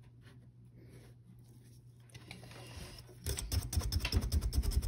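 Faint rustling of wool yarn being wrapped around a warp thread by hand, then, about three seconds in, a wooden tapestry beater tapping rapidly against the woven weft, about ten quick taps a second, packing the new pass down.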